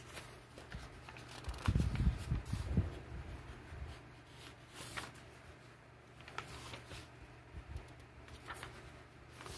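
Pages of a paperback workbook being turned by hand: soft paper rustling and light clicks, with a few louder low bumps of the book being handled about two seconds in.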